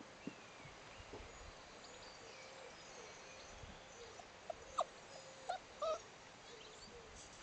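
Puppies whimpering: a few short, high squeaks clustered about four to six seconds in, over a quiet background.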